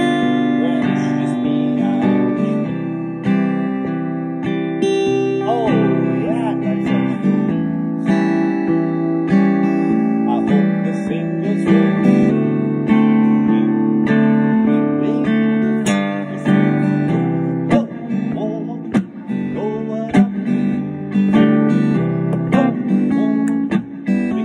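Acoustic guitar strummed in chords, the chords ringing and changing every second or so as a song is played.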